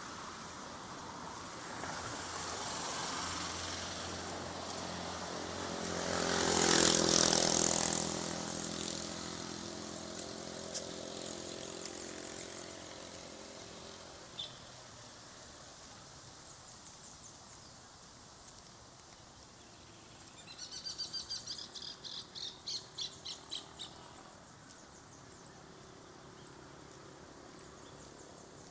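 A motor vehicle drives past, its engine and tyre noise rising to a peak about seven seconds in and then fading away. Later a bird gives a quick run of high chirps lasting about four seconds.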